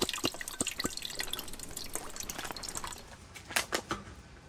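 Water dripping and trickling, a dense run of small drops. About three seconds in it thins out to a few separate clicks.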